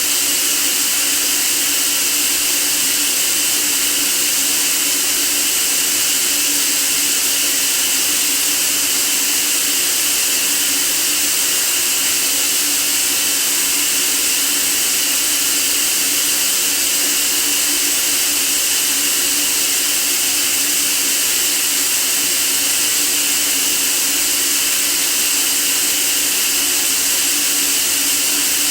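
Continuous white noise: a steady, unchanging hiss, strongest in the treble, with a faint low hum band beneath it.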